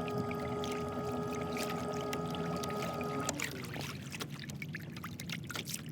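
A kayak's drive motor running with a steady whine that cuts off about three seconds in, its pitch sliding down as it stops. Light water clicks and splashes against the hull follow.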